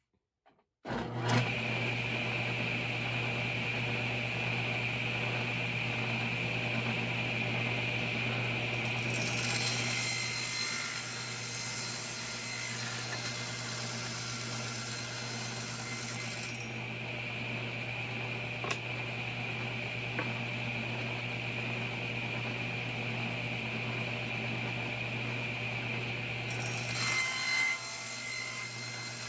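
Table saw starting about a second in and running steadily. From about ten to sixteen seconds in, the blade cuts a 45-degree miter through a wooden frame piece pushed on a miter sled. Near the end the motor hum stops amid a second short burst of cutting noise.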